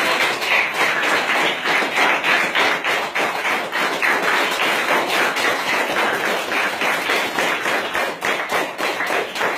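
A classroom of schoolchildren applauding, many hands clapping fast and unevenly, starting abruptly.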